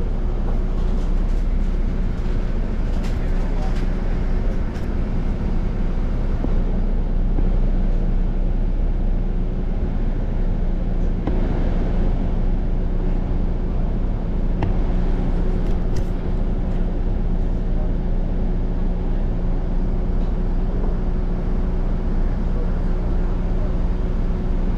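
City bus engine droning steadily, heard from inside the passenger cabin, with a few faint clicks and rattles.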